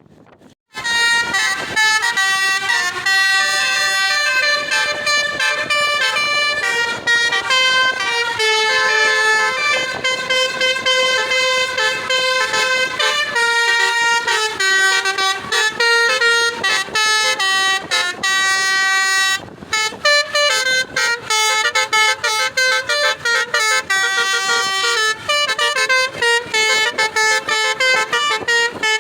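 Bus telolet horn of the Basuri type playing a tune: a long run of loud multi-tone air-horn notes stepping up and down in pitch. It starts about a second in and breaks off briefly about two-thirds of the way through.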